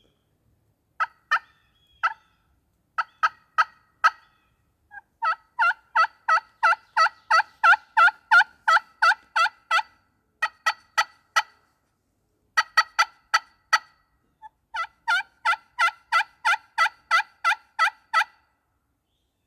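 Hand-operated turkey call run in imitation hen yelps to draw a distant gobbler: series of short, sharp, evenly spaced notes, about three a second, with pauses between the runs. The longest run lasts about five seconds.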